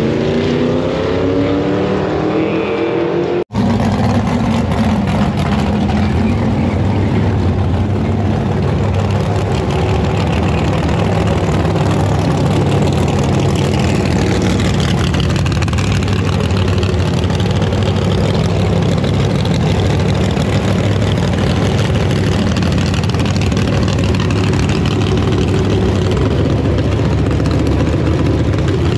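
Car engine revving, its pitch climbing over the first few seconds until it cuts off abruptly about three and a half seconds in. A loud engine then runs steadily with a deep low drone.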